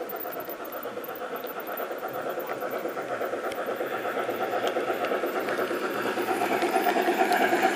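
G-scale model of a Harz narrow-gauge steam tank locomotive running along garden railway track with a steady mechanical running sound that grows louder as it approaches.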